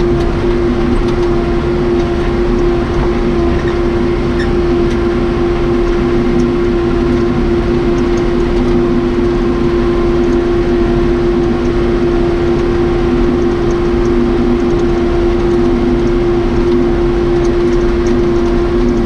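1993 Case 580 Super K backhoe's Cummins 4BT four-cylinder diesel running steadily, with a constant whine held over the engine note.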